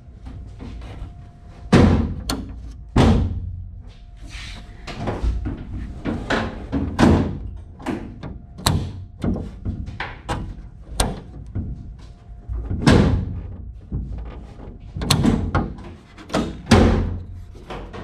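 Door of a Factory Five 35 Hot Rod Truck being shut again and again, its latch catching with about a dozen sharp slams and clacks, with rattling handling between them as the newly fitted latch and handle cables are tested.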